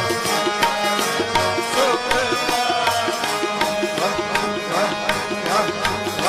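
Gurbani shabad kirtan music: tabla playing a steady rhythm under sustained held tones, with short sliding ornaments in the melody.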